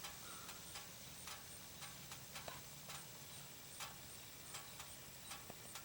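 Near quiet: faint background with a low steady hum and soft, irregular ticks every half second or so.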